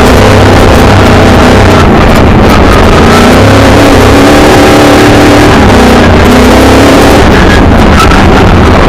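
Milner R5 racing car's 5-litre V8 engine, heard from inside the car, running hard with its revs rising and falling, over a loud steady rush of noise. Very loud throughout.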